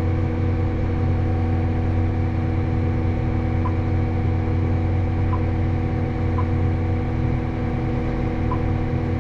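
Tractor running steadily with the planter's hydraulic-driven vacuum fans switched on: a constant drone with several steady hum tones. A few faint short beeps come through it.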